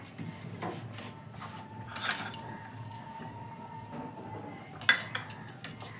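Metal kitchen utensils clinking: a ladle against a large metal cooking pot and small steel bowls being handled, with a sharp clink about five seconds in.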